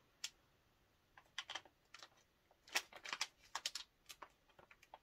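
Makeup brushes and their packaging being handled and unwrapped: a run of irregular light clicks and crinkles, thickest in the second half.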